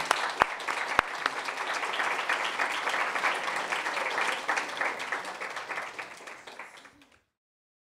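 Applause, many hands clapping, fading out over the last couple of seconds and then cutting off to silence.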